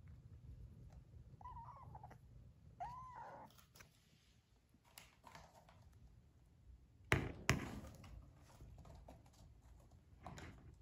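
A kitten meows twice, two short high calls that rise and fall, in the first few seconds. About seven seconds in come two sharp knocks close together, the loudest sounds.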